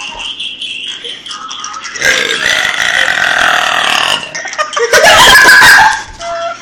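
A person burping loudly twice: a long, drawn-out burp about two seconds in, then a shorter, louder one about five seconds in.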